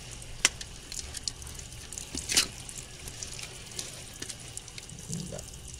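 A steady stream of running water splashes over mud crabs being rinsed and scrubbed clean. A few sharp clicks of shell and knife break through it, the loudest about two and a half seconds in.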